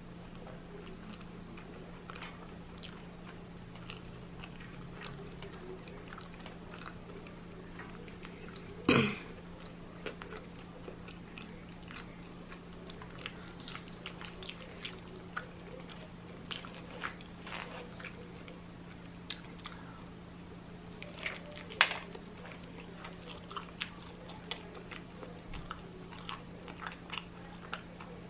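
Close-up chewing and biting of a fried chicken sandwich, with small crunches and mouth clicks throughout. There is one louder brief sound about nine seconds in and a sharp click near the end, over a steady low hum.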